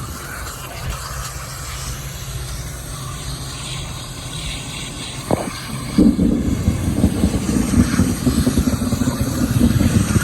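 Heavy rain pouring down, a steady rush that gets louder and rougher about six seconds in, with a sharp knock just before.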